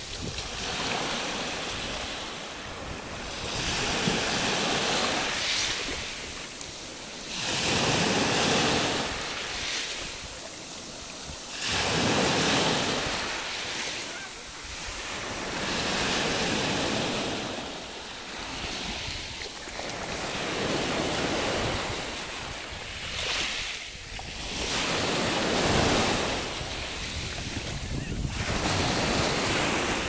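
Small waves washing up a pebble beach and drawing back over the stones, swelling and ebbing about every four seconds. Wind rumbles on the microphone.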